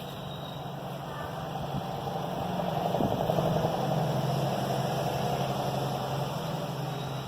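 A motor vehicle passing by on the street: its low engine hum and road noise grow louder to a peak about halfway through, then fade away.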